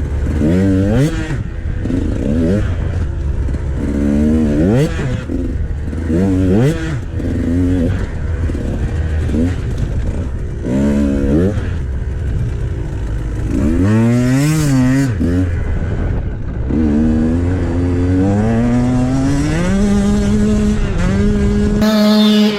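Two-stroke KTM XC300 enduro dirt bike engine being ridden on a trail, revving up and down in quick throttle swings. Near the end it climbs steadily and holds at a higher rev.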